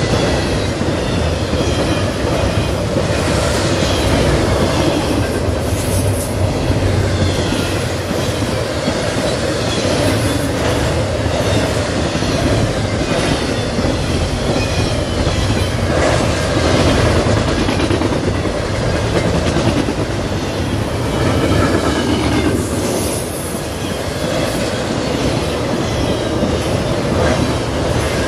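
Double-stack intermodal container cars of a freight train rolling steadily past: a continuous rumble of steel wheels on rail with the clickety-clack of wheels crossing rail joints.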